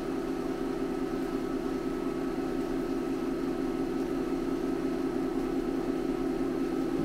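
Film projector running: a steady hum with a fast, even flutter.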